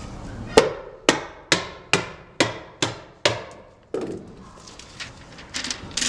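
A hammer stapler struck about seven times in quick succession, roughly two sharp strikes a second, stapling flashing paper to the sheathing under a window sill. Near the end the strikes stop and there is a soft rustle as the flashing roll is unrolled.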